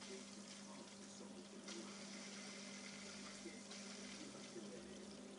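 Faint, steady running-water noise of an aquarium's filter, with a constant low hum underneath.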